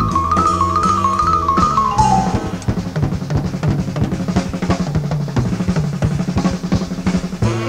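Live bebop jazz combo: a vibraphone melodic line ends about two seconds in, and the drum kit then plays a busy break of snare and bass drum strokes for the rest.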